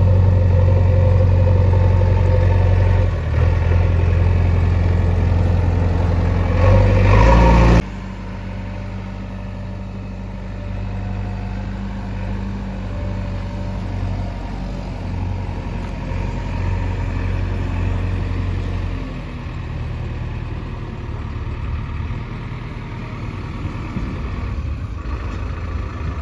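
JCB 3DX backhoe loader's diesel engine running loud and steady, rising briefly, then dropping suddenly about eight seconds in to a quieter, steady idle.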